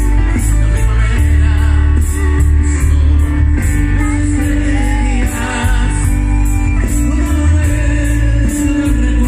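Grupero band playing live through a PA, with a man singing over electric guitar, bass, keyboard and percussion. A steady beat with heavy bass and a cymbal ticking about three times a second.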